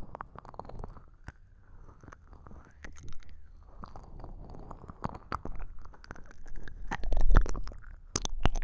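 Ear-licking mouth sounds close against a binaural microphone: irregular wet smacks, slurps and clicks, slow and uneven, with a louder cluster about seven seconds in.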